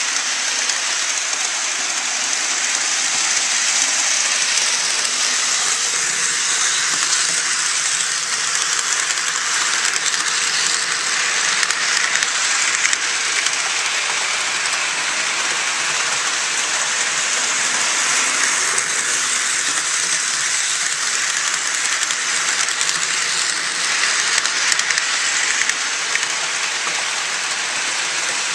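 HO scale model train running along the track: a steady high rolling hiss from the wheels and the small motor, with faint scattered ticks.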